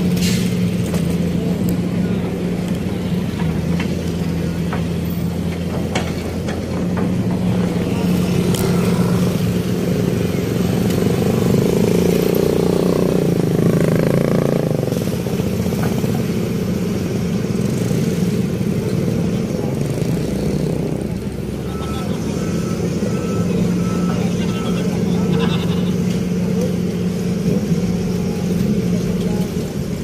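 Motor vehicle engines running with a continuous low drone, as motorcycles and other street traffic pass. A short run of faint, evenly spaced beeps comes about three-quarters of the way through.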